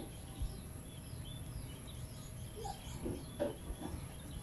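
Birds chirping in short, scattered calls over a low steady background rumble.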